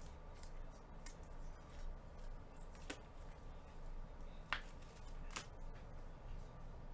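Trading cards being handled and set down, with about four short light clicks and taps, the sharpest a little past the middle.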